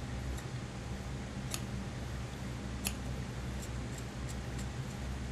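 Tailor's shears cutting through a single thick layer of suit-jacket cloth: a run of small sharp snips as the blades close, two of them standing out about a second and a half apart, over a steady low hum.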